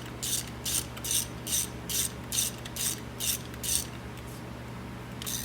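Socket ratchet clicking in about ten quick rasping strokes, two to three a second, as a spark plug is run down and tightened. The strokes stop about four seconds in, with one more near the end.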